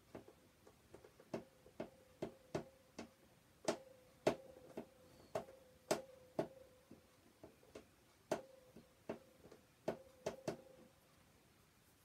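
Small hand screwdriver turning a stubborn screw: irregular sharp clicks, about two a second, with a faint steady tone beneath them from about a second in until near the end.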